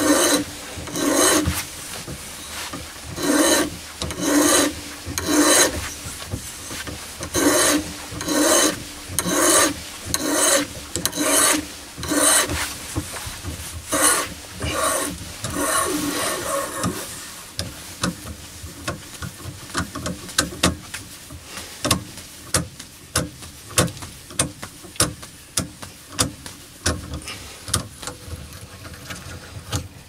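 Lubricated quarter-inch BSP hand tap cutting a thread into a brass door knob, turned with a bar tap wrench: a run of scraping cutting strokes, about one a second. About halfway through, the strokes give way to quicker, lighter clicks.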